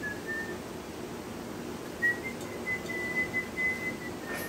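Someone whistling a string of short, high, nearly level notes about halfway through, over a faint steady hum, with a single click near the end.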